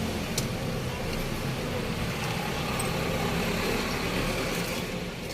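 Steady motor-vehicle engine and road traffic noise, with a light click about half a second in.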